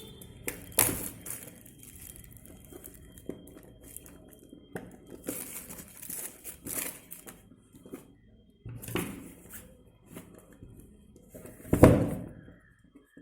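Packaging of a new phone being handled: scattered rustling and crinkling of plastic wrap and cardboard, with light knocks, and the loudest bump near the end.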